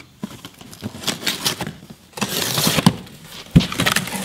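A cardboard shipping box being opened by hand: packing tape slit and torn, cardboard flaps scraping and rustling as they are pulled open, with a sharp knock about three and a half seconds in.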